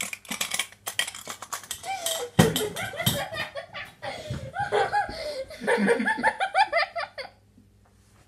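A boy laughing helplessly after spitting out a mouthful of drink: short breathy bursts at first, then several seconds of pitched laughing that stops about a second before the end.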